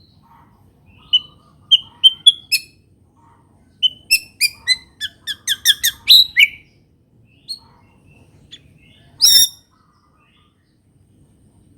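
White-rumped shama (murai batu) singing a song filled with learned canary phrases: a few sharp whistled notes, then about four seconds in a quick run of falling whistles, and one loud harsh note near the end.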